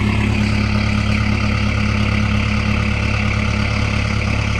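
Engine idling steadily, a constant low hum that does not change.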